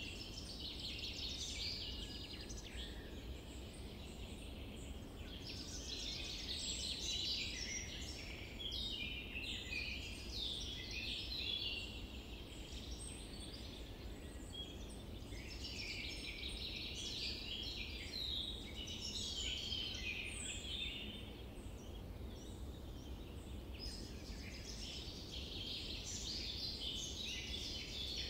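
Many small birds chirping and trilling, in waves that swell and fade every few seconds, over a steady low background noise.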